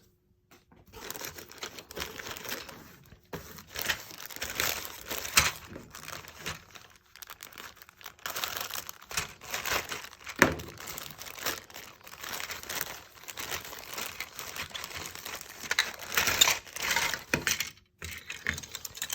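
Plastic bag crinkling and rustling in irregular spurts as plastic model-kit parts are handled and pulled from their packaging.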